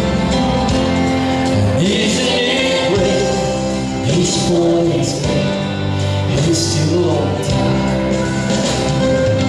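A man singing a solo through a microphone over instrumental accompaniment, his voice coming in about two seconds in.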